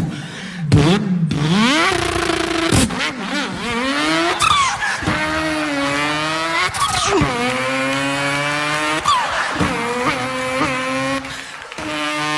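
A person imitating a racing car engine with their voice: the engine note climbs in pitch, drops sharply as if shifting gear, and climbs again, several times over.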